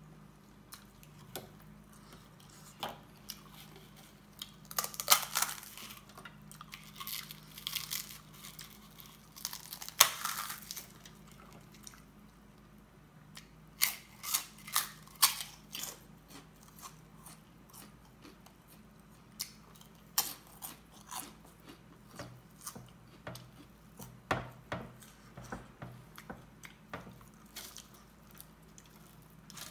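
Close-up eating: crunchy fried snacks bitten and chewed in loud clusters of crunches, the sharpest in the first half. These are followed by softer wet chewing and fingers mixing food on a steel plate. A faint steady hum runs underneath.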